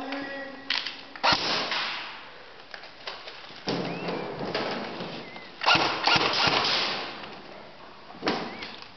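Airsoft guns firing in about five short bursts of rapid shots, the loudest about a second in and near the middle.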